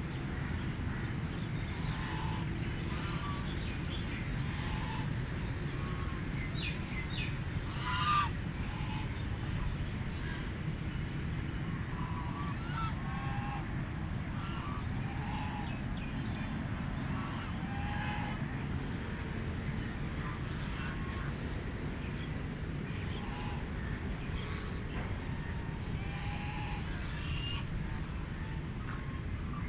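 Ducks calling with short, scattered quacks, one louder sharp call about eight seconds in, over a steady low background rumble.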